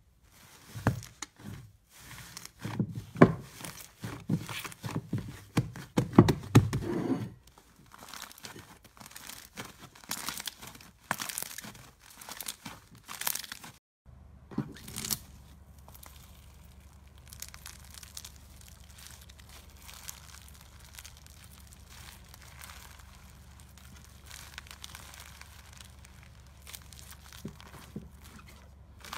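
Slime squeezed and kneaded by hand: wet squishing, popping and crackling. The squishes are loudest in the first several seconds, and fainter crackling follows after a brief gap about halfway through.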